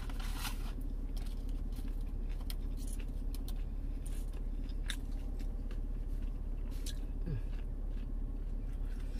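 A person chewing a mouthful of chicken nugget with their mouth closed, with scattered wet mouth clicks over a steady low hum.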